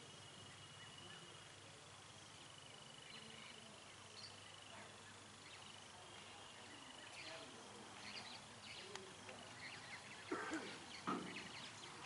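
Faint outdoor ambience: a thin, steady high-pitched tone through the first half, then scattered rustles and a couple of soft knocks near the end.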